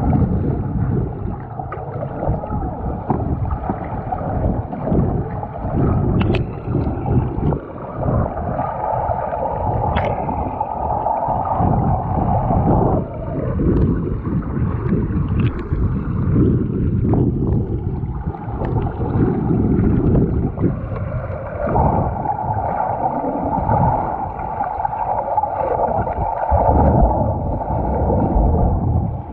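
Muffled rushing and gurgling of water picked up by a camera held underwater while snorkeling, with a few faint clicks.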